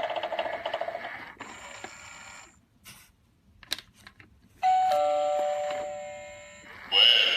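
Novelty Halloween doorbell: a pulsing spooky recording fades out, a few sharp clicks follow, then a bell chime rings about two-thirds of the way in and dies away over about two seconds. A new spooky recording starts loudly near the end.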